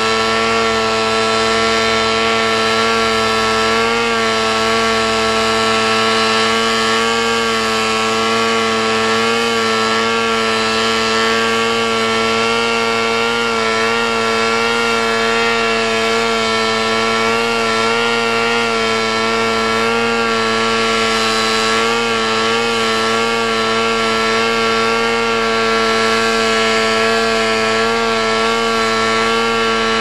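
Ducted-fan powerplant of a V-Bat 3.0 model tail-sitter running steadily as it holds an autonomous hover, its pitch wavering slightly.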